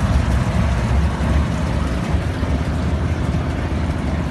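Tugboat's Mitsubishi 10DC11 marine diesel main engine running steadily under way, a low, even rumble.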